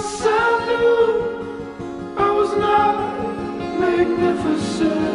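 Background music: a slow song with held chords and sung vocals.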